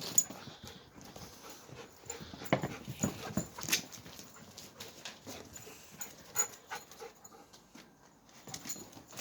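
Wolfdogs panting and scuffling in rough play, with a string of short sharp clicks and knocks, the loudest a few seconds in.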